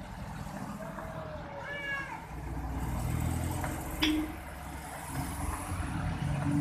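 Maruti Zen hatchbacks driving past one after another, their engine and tyre noise swelling about two seconds in. A short high wavering sound comes just before the swell, and a brief sharp tone about four seconds in.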